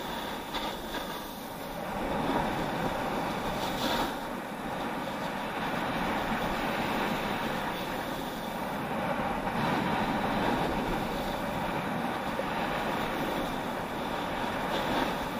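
Edges sliding and scraping over packed snow on a downhill run: a steady rushing scrape that swells and eases from turn to turn, with a few brief sharper scrapes.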